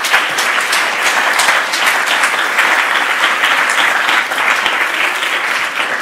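Audience applauding, a dense run of clapping that eases off slightly near the end.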